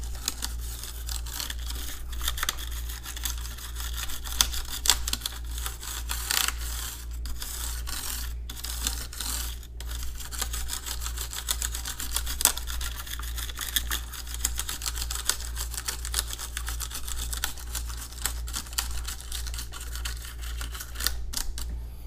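Small brush scrubbing rapidly over a mechanical keyboard's exposed switches and plate, a continuous dense scratching of bristles, working loose stuck-on grime. A steady low hum runs underneath.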